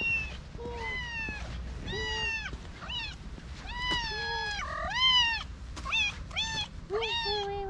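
A cat meowing over and over: about a dozen short meows that rise and fall in pitch, one or two a second.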